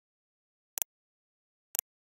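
Two sharp computer mouse clicks about a second apart, each a quick press-and-release pair, with dead silence between them.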